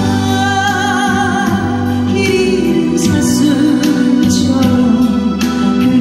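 A woman singing a Korean ballad into a microphone, holding long notes with vibrato, over a steady instrumental backing.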